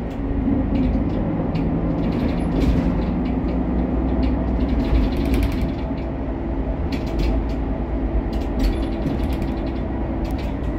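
Cabin noise inside a Credo Econell 12 low-floor bus: a steady low engine and road rumble with a held hum, and scattered creaks and rattles from the interior fittings.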